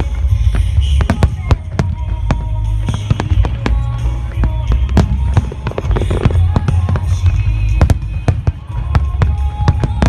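Large aerial fireworks going off in rapid succession, with deep booming rumble and many sharp cracks and crackles. Music plays underneath.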